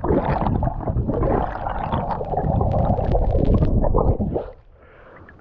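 Underwater noise picked up by an action camera as the spearfishing diver swims up: a dense rushing rumble of water over the camera housing, with many small bubble clicks. About four seconds in it drops away suddenly as the camera breaks the surface.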